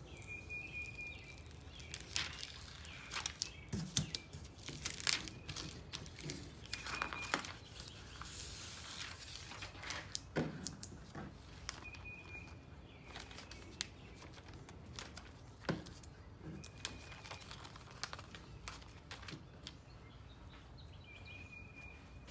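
Sheets of vinyl and plastic transfer tape being handled and peeled from their backing, making an irregular crinkling and crackling with sharp clicks, busiest in the first half.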